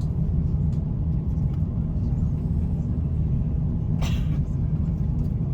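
Steady low rumble inside the cabin of an Airbus A350-900 in motion, with a brief hiss-like rustle about four seconds in.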